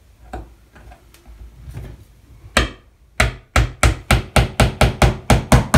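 Small tack hammer tapping a pin into a thin wooden faceplate laid over the bulkheads. A few light handling clicks, then a single strike about two and a half seconds in, followed by a quick, even run of taps, about four a second.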